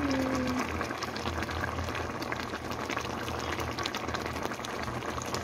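Thick tomato-sauce vegetable stew simmering in a pan, a steady bubbling with many small irregular pops of bursting bubbles.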